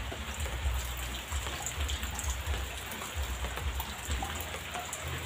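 Light rain pattering steadily, with irregular low rumbling thumps underneath.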